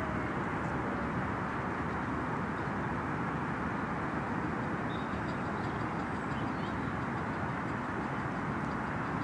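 Miniature steam locomotives working slowly along a ridable miniature railway, heard under a steady rushing noise, with faint light ticks from about five seconds in.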